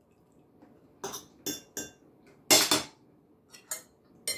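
Metal cutlery clinking and scraping against a plate as food is cut and picked up: about seven short, sharp strokes, the loudest a longer scrape a little past the middle.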